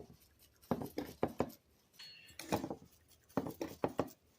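Seasoning shaker shaken over a bowl: three short bursts of quick taps and rattles.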